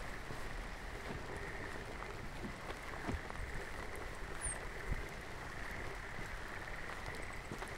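Steady rain ambience with a frog chorus calling in the background and a few soft footsteps.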